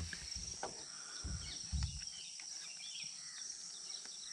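Steady high-pitched insect drone from the forest, with a few faint bird chirps and two low thumps between one and two seconds in.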